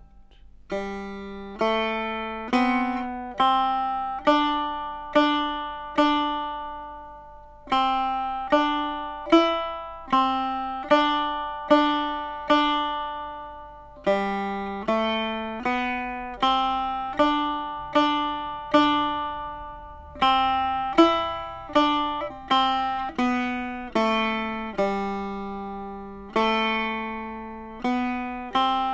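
Setar playing a slow single-line exercise melody, one plucked note at a time with alternating down and up strokes of the index fingernail, each note ringing out and fading before the next. The melody moves in short and longer notes, with brief pauses between phrases.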